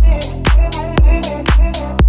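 Electronic background music with a steady kick drum about twice a second, hi-hat ticks between the beats and a wavering synth melody.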